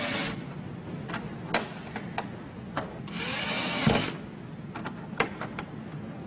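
Cordless drill/driver run in two short bursts, right at the start and again about three seconds in for about a second, driving screws to fit a metal hasp on a wooden door. Sharp clicks and knocks come between and after the bursts as the hardware is handled.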